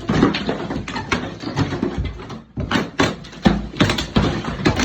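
Lath-and-plaster wall being torn down: repeated cracking and knocking of plaster and wooden lath breaking away, with crumbling debris falling, easing off briefly about two and a half seconds in.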